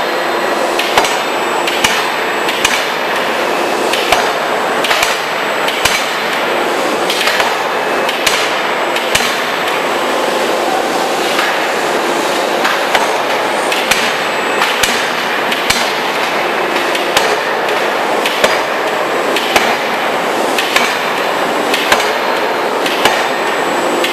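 C66 forging hammer at work: sharp, ringing blows at an uneven pace, roughly one or two a second, over a constant loud machine noise.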